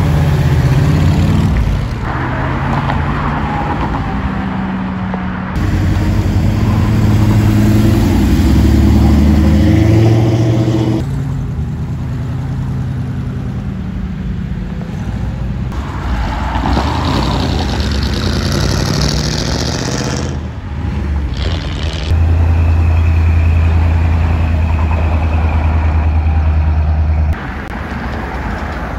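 Engines and exhausts of classic cars driving past and pulling away, in several short clips cut together. Near the end comes a strong, steady low rumble that stops suddenly at a cut.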